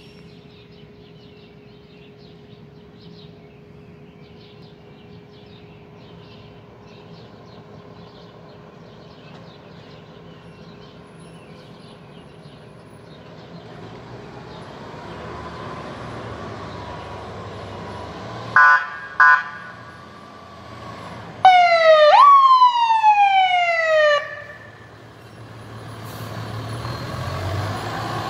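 Fire engine approaching with its siren: a faint, steady background at first, then a distant siren wail growing louder. Two short horn blasts come about 19 seconds in, then a loud siren sweep, jumping up and falling in pitch for about two and a half seconds. The truck's engine noise and the wail build again as it nears.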